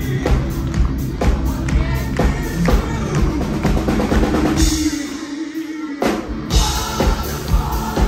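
Live hard rock band playing at full volume: drum kit, bass, guitars and a singer. About five seconds in the drums and bass drop out for a moment under a held note, then the whole band crashes back in.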